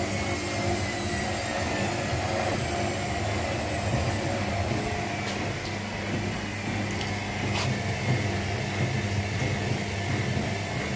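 Several domestic washing machines running together: a steady mechanical rumble and hum under a high motor whine that slowly falls in pitch, with a few sharp clicks in the second half.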